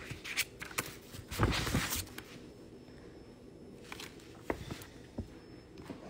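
Small handling noises: plastic nail tips clicking against fingers and each other, with a brief rustle about a second and a half in, then a few sparser clicks.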